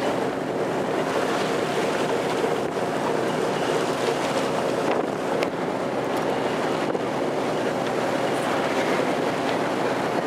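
Open wooden motorboat under way: a steady engine hum mixed with the rush of water and wind buffeting the microphone.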